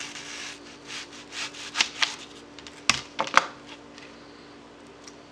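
Kitchen knife slicing through a whole onion on a cutting board: a run of short cutting strokes, with two sharp taps of the blade on the board about three seconds in.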